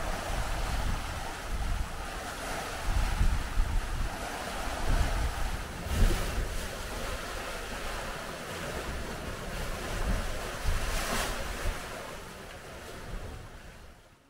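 Churning, foaming wake rushing behind a sailing catamaran's hulls, with gusts of wind buffeting the microphone. It fades out over the last couple of seconds.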